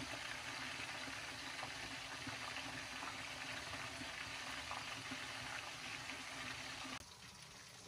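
Hot oil sizzling and frying steadily, with faint crackles, dropping away abruptly near the end.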